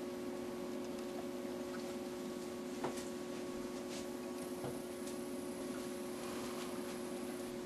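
Quiet room tone: a steady low hum, with a few faint ticks between about three and five seconds in and a faint high whine in the second half.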